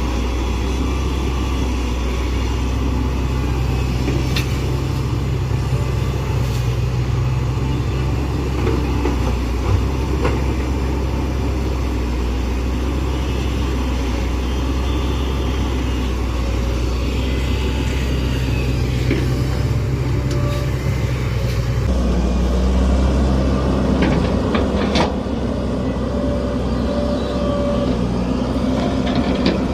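Excavator's diesel engine running steadily under load, with a few sharp clanks; the engine sound shifts abruptly about 22 seconds in.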